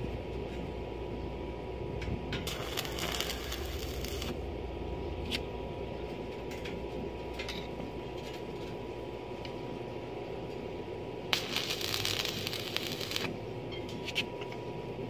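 Electric stick (arc) welding a steel bar to an angle-iron frame: two crackling tack welds of about two seconds each, one about two seconds in and one about eleven seconds in, over a steady hum.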